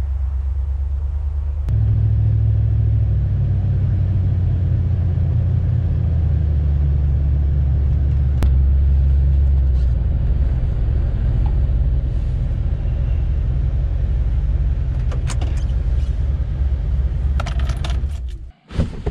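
Truck driving: a steady low rumble of engine and road noise that gets louder about two seconds in. It cuts off abruptly near the end among a few clicks and knocks.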